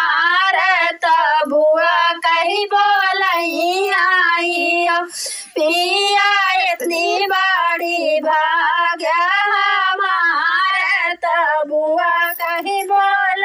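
A woman's high solo voice singing a sohar, an Awadhi folk song celebrating a child's birth, in long sung phrases, with a short pause for breath about five seconds in.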